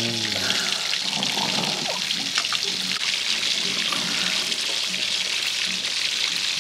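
Tap water running steadily into a sink: an even rushing hiss.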